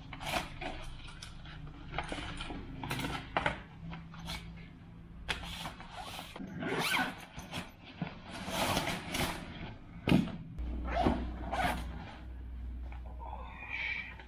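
Zippers on a nylon golf bag's pockets and a small pouch being pulled open, with rustling fabric and items handled, in a run of short scratchy strokes.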